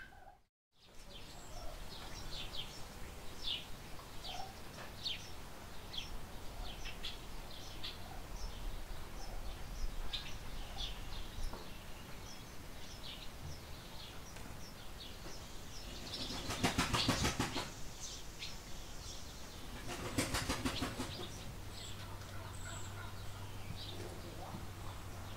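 Small birds chirping again and again in a barn, short sharp high notes a few to the second. Twice in the second half come bursts of rapid wing flapping, the first the loudest sound here.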